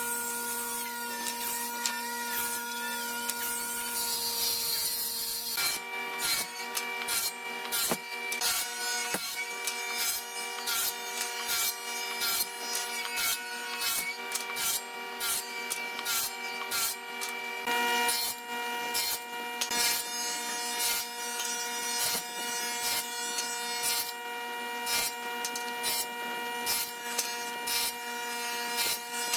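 Woodworking on hardwood: a machine hums steadily while something rubs, saws or rasps against wood in quick, repeated strokes, which start about six seconds in.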